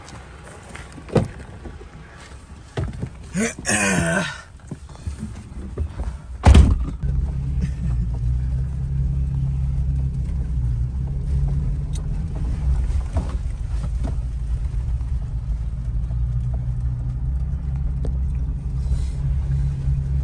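A few clicks and rustles, then a loud thud about six and a half seconds in as the pickup's door shuts. After it, a steady low rumble of the pickup's engine running, heard inside the cab.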